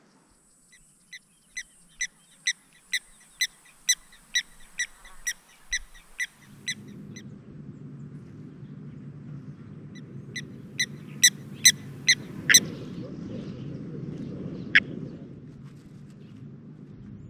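Blacksmith lapwing giving its metallic 'tink, tink, tink' alarm call: a run of sharp, ringing notes at about two a second for several seconds, then a faster, louder run of notes a few seconds later and a single last note.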